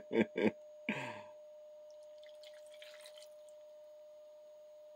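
Potato cooking water poured from a glass into a saucepan of diced potatoes: a few short splashes and drips in the first second or so, then a faint trickle. A steady faint tone hums underneath.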